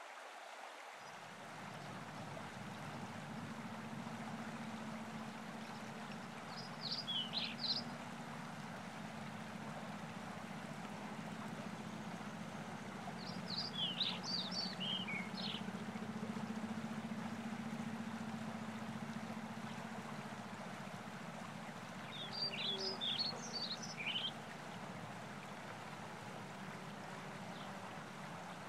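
Steady rush of flowing river water with a low hum underneath, and a songbird singing a short phrase of high notes three times, roughly every seven to nine seconds.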